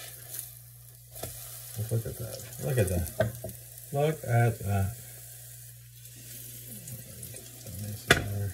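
Pancakes frying in a hot pan, giving a steady faint sizzle, with a sharp knock about a second before the end.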